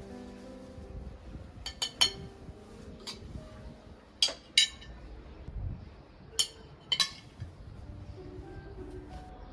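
Hard kitchenware clinking: about seven sharp clinks that come mostly in pairs, each with a brief ringing tone, over faint background music.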